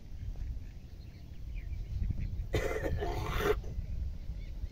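Wind rumbling on the microphone throughout. About two and a half seconds in comes a loud splashing, rushing burst of about a second as the fishing net is hauled up out of the river and water pours off it. Faint bird chirps sit in the background.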